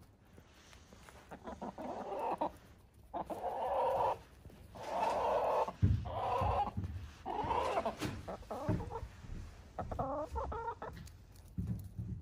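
Hens clucking loudly in a string of drawn-out calls, ending in a quicker run of short clucks near the end. A single low thump about six seconds in.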